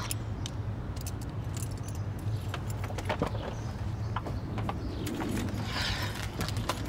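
Keys on a lanyard jangling in scattered small clinks, with the rustle of a gym bag being lifted about five seconds in.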